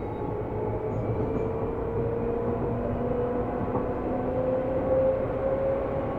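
Seibu New 2000 series electric train heard from inside the car while running: traction motor whine rising slowly in pitch as it gathers speed, over a steady rumble of the wheels on the rails.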